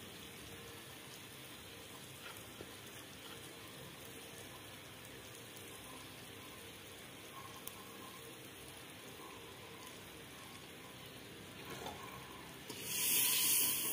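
Onion-and-spice masala frying in oil in a pot, a steady faint sizzle. It swells suddenly into a louder sizzle about a second before the end.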